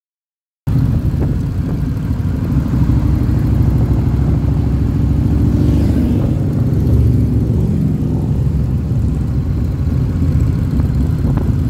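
Harley-Davidson V-twin motorcycle engine running steadily while riding at street speed, heard from the rider's seat. It cuts in suddenly under a second in, after a moment of silence.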